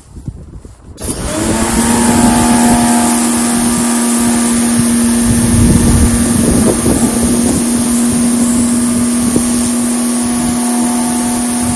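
McAllister MPWP 2200 electric pressure washer starting up about a second in, then running steadily: a constant motor hum under a loud hiss of spraying water.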